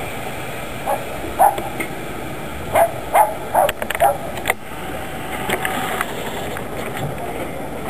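A passenger train's coaches give a steady rumble and hiss beside the platform, while a dog barks several times, short sharp barks between about one and four seconds in.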